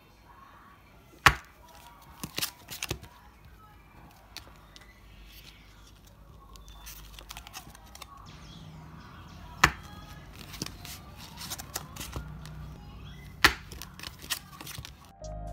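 Hands handling enamel pins on paper backing cards and a foam sheet on a wooden table: faint rustling broken by a few sharp taps and clicks as cards and pins are set down.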